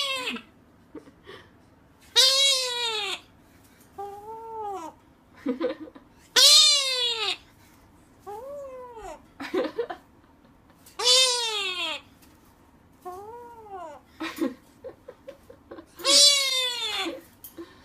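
Repeated meows, about seven in all, each a drawn-out call that rises and then falls in pitch. Louder meows alternate with softer ones, every two seconds or so.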